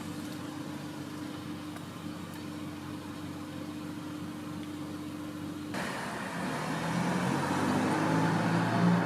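A motor vehicle running with a steady low hum. About six seconds in the noise suddenly grows louder and fuller, and near the end the engine's pitch rises as it speeds up.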